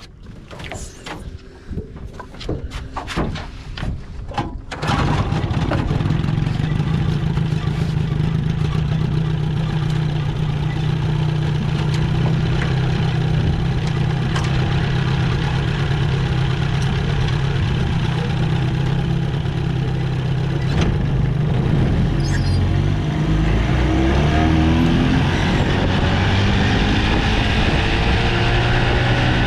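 1973 Johnson 20 hp two-cylinder two-stroke outboard motor being cranked over with several short strokes, catching about five seconds in and settling into a steady run. Near the end the pitch rises as the throttle is opened and the motor speeds up.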